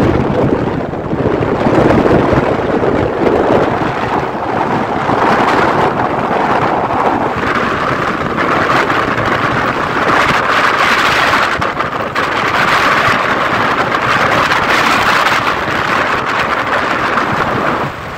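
Wind buffeting the microphone of a camera riding on an open moving vehicle, a loud steady rush mixed with road and engine noise.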